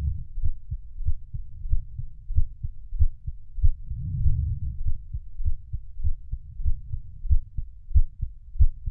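Heartbeat thudding in a steady rhythm of deep, low beats. A soft low rushing swell rises under the beats about four seconds in.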